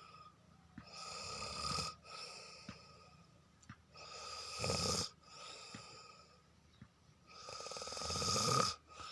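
A sleeping man snoring heavily: three long snores about three seconds apart, each swelling in loudness and then cutting off sharply, with quieter breathing in between.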